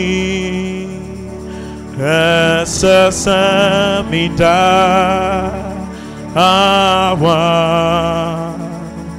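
Gospel worship music: long held sung notes with a slow wavering pitch, a new phrase coming in about two seconds in and again about six and a half seconds in.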